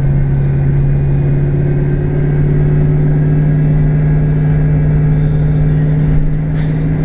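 Fox-body Mustang's 5.0 (302) V8 running steadily, a loud low drone with road rumble beneath; its pitch creeps slowly upward.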